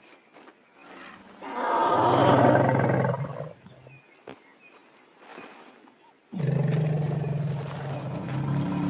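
African elephant giving one loud, rough call of about two seconds, starting about a second and a half in. About six seconds in a loud, steady low drone starts suddenly and holds to the end.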